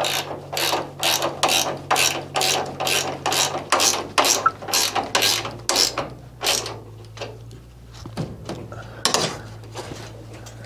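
Hand ratchet wrench tightening a nut and bolt, working in quick strokes about two or three a second; the strokes slow and fade after about six seconds, with one more stroke near nine seconds.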